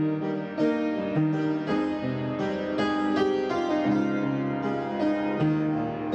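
Background music: a plucked keyboard melody, harpsichord-like, playing chords and notes in a steady rhythm.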